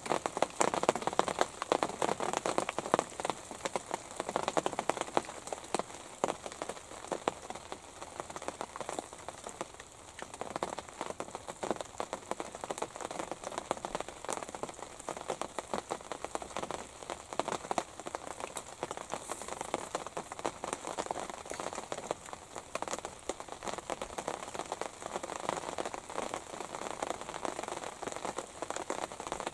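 Rain falling on the fabric of a pop-up hunting blind, heard from inside as a steady, dense ticking of many drops.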